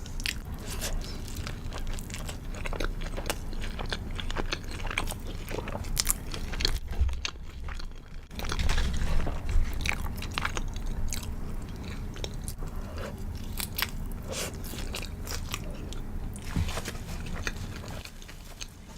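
Chewing and crunching of a crispy fried chicken burger, with many short crisp cracks from the coating as it is bitten and chewed.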